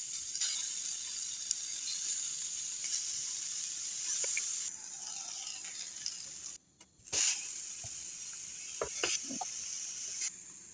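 Chicken and pineapple slices sizzling on the hot plate of an electric contact grill, a steady hiss that breaks off briefly partway through. A few short clicks sound about nine seconds in.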